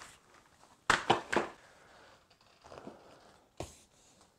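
Plastic wrapping and PVC boat fabric rustling and crinkling as a packed inflatable boat is handled, with a quick run of three sharp crackles about a second in and a single sharp click near the end.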